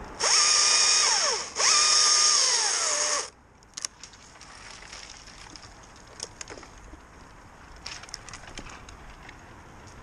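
Electric power tool run in two bursts of about a second and a half each, its motor whine steady and then winding down in pitch as each burst ends. A few faint clicks and taps follow.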